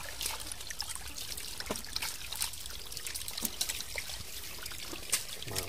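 Hands groping through wet mud and shallow muddy water: irregular small squelches, drips and splashes.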